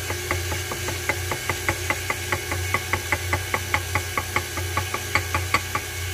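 KitchenAid Ultra Power stand mixer running with a steady motor hum while flour is added to the batter, with a rapid, regular clicking about five times a second over it.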